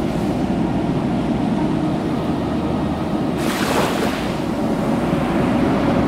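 Ocean surf with a steady low rush of water, and a wave breaking about three and a half seconds in with a brief hissing wash.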